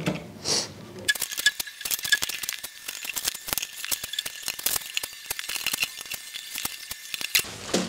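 Rapid, irregular small clicks and rattles of screws and plastic parts being handled while a hologram fan's wing is fitted and screwed onto its hub, over a faint steady high tone.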